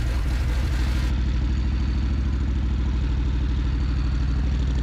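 Harley-Davidson Fat Bob's Milwaukee-Eight 114 V-twin idling steadily with an even, loping pulse, just after being started following a tune-up with new spark plugs.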